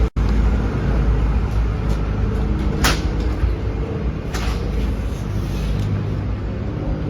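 A vehicle engine running steadily, with a short hiss about three seconds in and a fainter one shortly after.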